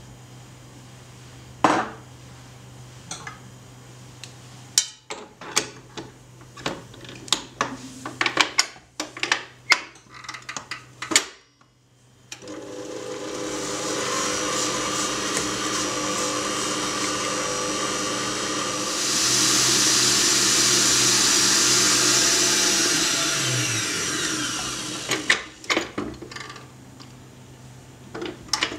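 A run of sharp clicks and knocks, then an electric stand mixer's balloon whisk starts up, beating sour cream with powdered sugar. It runs steadily, switches to a higher speed for a few seconds, then winds down with a falling hum and stops. A few more knocks follow.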